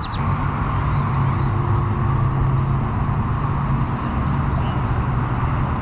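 Road traffic: a steady motor-vehicle engine hum with tyre noise, a little louder just after the start and then holding steady.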